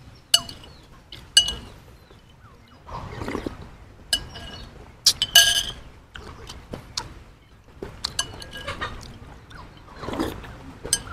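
A metal spoon clinking against a white ceramic bowl of congee: a series of short, sharp ringing clinks at irregular intervals, the loudest about five seconds in. Between them come two softer noisy stretches of slurping the congee off the spoon.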